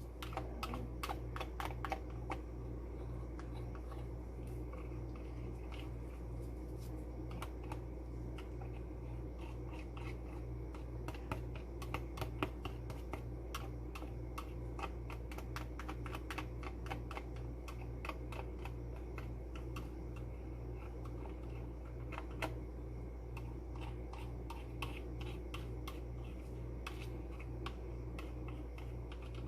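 A metal fork clicking and scraping against a bowl as partly cooked scrambled egg curds are worked off its sides, in many small irregular taps with a few louder clicks. A steady low hum runs underneath.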